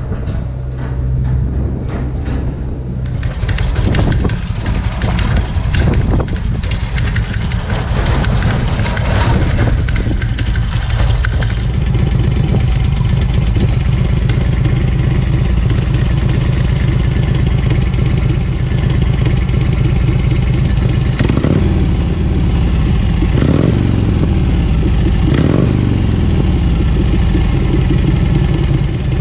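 Harley-Davidson Shovelhead air-cooled V-twin engine running through a replacement silencer. The exhaust note is steady for long stretches, then rises and falls several times near the end as the revs change.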